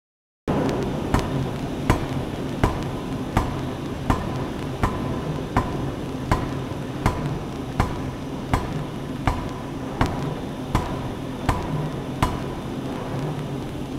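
Pneumatic forging hammer striking a red-hot workpiece on the anvil in a steady rhythm, about four blows every three seconds, over the constant din and hum of the forge shop. The sound cuts out for a moment at the start, and the blows grow faint near the end.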